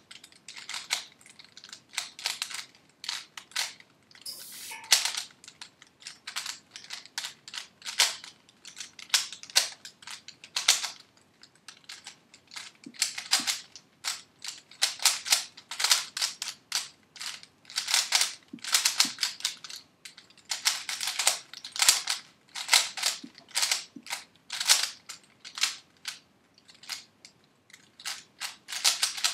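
3x3 Rubik's Cube being turned rapidly in a speed solve: quick, irregular plastic clicks and clatters of the layers snapping round, in flurries with short pauses between.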